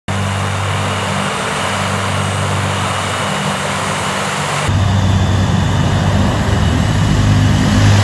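Tu-95MS bomber's four Kuznetsov NK-12 turboprops with contra-rotating propellers running as it taxis: a steady, loud, low droning hum. A little over halfway in, an abrupt cut leads to a louder, deeper run of the same drone.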